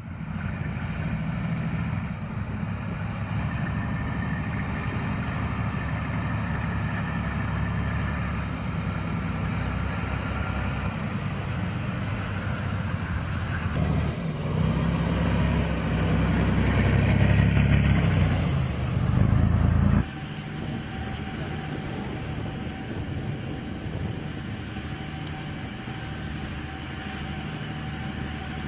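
Engines of heavy military trucks running as the vehicles drive, growing louder for several seconds as one passes close. About two-thirds of the way through it cuts abruptly to a quieter, steady hum.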